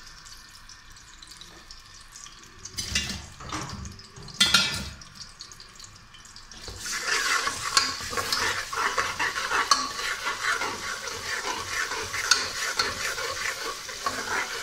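Pounded green chilli and garlic paste frying in hot oil in a pressure cooker as a tadka, with a metal spoon stirring and scraping the pot. A couple of knocks come in the first few seconds, and from about halfway there is a steady crackling sizzle.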